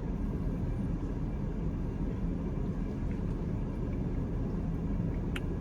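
Steady low vehicle rumble, the sound of a car idling, with a single short click about five seconds in.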